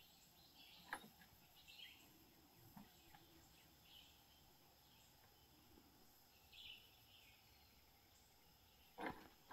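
Near silence with faint short chirps every couple of seconds, a thin click about a second in, and a louder sharp knock near the end.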